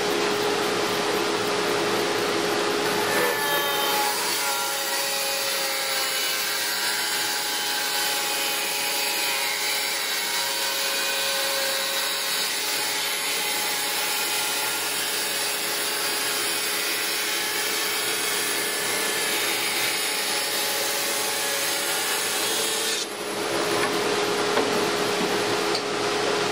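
A dust collector runs steadily with a constant hum and makes most of the noise, while the quiet Baileigh WBS-14 14-inch band saw rips a thick board of 8/4 hard maple. The cutting is heard from about three seconds in and ends about 23 seconds in.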